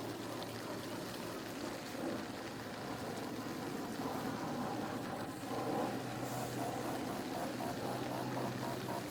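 Steady outdoor background noise with a faint low hum, played at double speed, with no distinct events.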